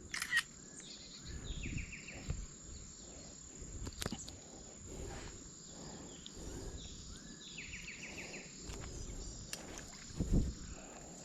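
Creek-side outdoor ambience of insects calling: a steady high, thin whine with two short, fast-pulsed buzzing trills, one early and one near the middle. A few sharp clicks and a low thump near the end.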